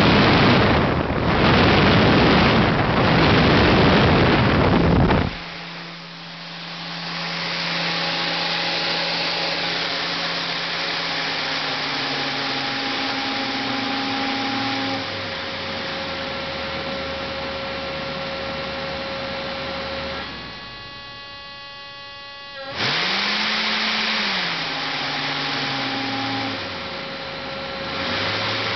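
Electric motor of a model hot-air balloon inflator fan, speed-controlled by PWM. It blows loudly at full speed for about the first five seconds, then runs slower with steady whines that step in pitch. A buzzing hum comes about twenty seconds in, and near the end a whine rises and falls as the speed is changed.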